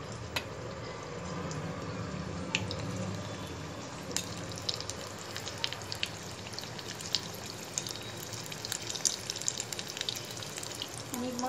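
Breadcrumbs crackling and crunching as a hand presses a chicken nugget into them in a steel plate: scattered small crisp clicks over a steady low hiss, busiest in the middle and later part.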